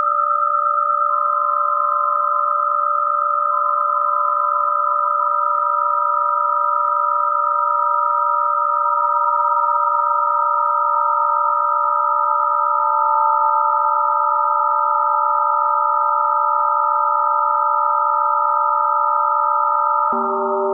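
Electronic sine-wave tones generated in Max/MSP: a steady chord of pure tones, joined about a second in by a third tone that glides slowly downward. Near the end it switches abruptly to a new chord with lower tones.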